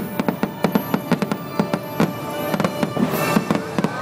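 Fireworks finale barrage: a rapid, dense string of sharp firework bangs and crackles in quick succession, with a brief hiss a little after three seconds in. The show's music plays underneath.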